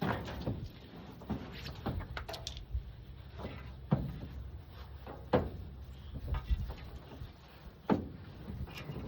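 Irregular knocks and clanks, six or so sharp ones spread through, of items being moved around and pulled out of a pickup's truck-bed toolbox.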